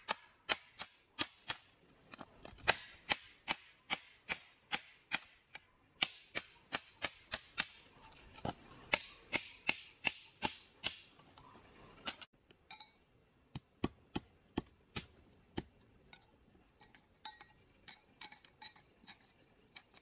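A hammer pounding a strip of green bamboo laid on the ground, crushing it flat into a board, in quick blows about two to three a second. About twelve seconds in the blows break off, then go on slower and more scattered.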